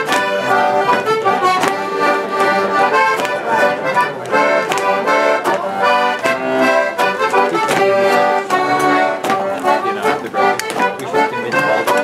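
Piano accordion playing a lively traditional dance tune for rapper sword dancing, with sharp clacks in time with the beat.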